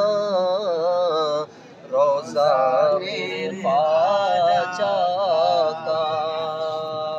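Men singing a naat, a devotional song, in long wavering held notes. The singing breaks off briefly about a second and a half in, then resumes and ends on a long held note.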